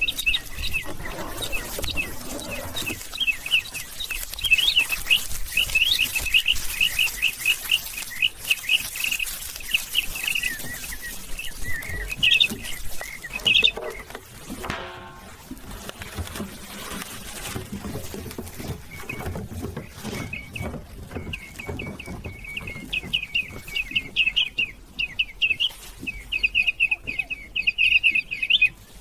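Rapid, high-pitched chirping repeating several times a second, pausing for a few seconds about halfway through, with a brief falling tone at the break.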